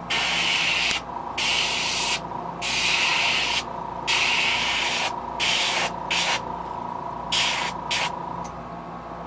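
Airbrush hissing as it sprays paint onto a jerkbait lure, triggered in about ten short bursts of a second or less with brief gaps between them.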